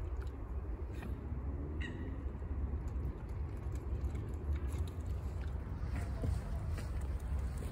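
Low, fluctuating wind rumble on the microphone, with a few faint clicks.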